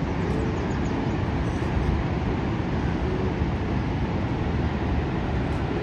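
Steady, unbroken rushing roar of the American Falls at Niagara, falling water heavy in the low rumble.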